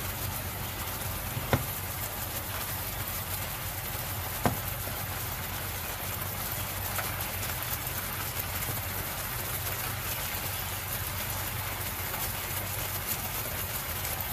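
Pork loin slices sizzling and bubbling in their sauce in a frying pan, a steady crackling hiss. Two sharp clicks sound about a second and a half in and again about four and a half seconds in.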